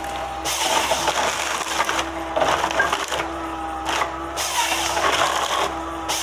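Forestry harvester with a Waratah H414 head working a pine stem: the machine's hydraulics and engine run steadily with a whine that comes and goes, over cracking and crunching of wood and branches as the head grips and feeds the stem.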